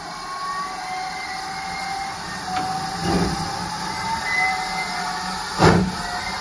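GWR Mogul steam locomotive 9351 starting away from a stand: a steady hiss of steam with slow exhaust beats, a soft chuff about three seconds in and a much louder one near the end.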